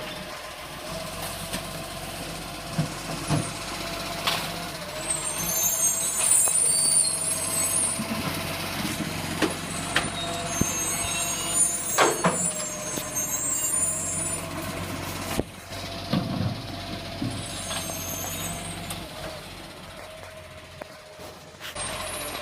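Garbage truck running, with a steady whine over the engine, bursts of high hissing squeal, and several sharp knocks and bangs.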